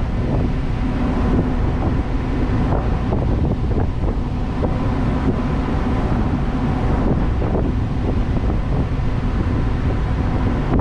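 Wind buffeting the microphone over the steady hum of a woodchip carrier's engine, running under way.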